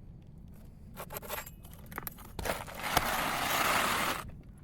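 Asphalt roof shingles being handled: a few light taps and rustles, then about halfway in a scrape of nearly two seconds as material drags across the shingles.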